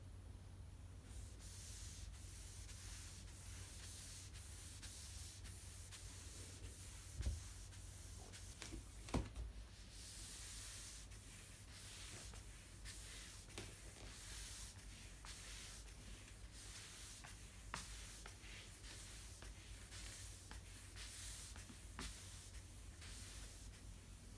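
Flat floor wiper with a cloth pad made from an old bedsheet swishing back and forth over wooden flooring, a soft rubbing stroke repeated every second or so. Two sharper knocks come about a third of the way in.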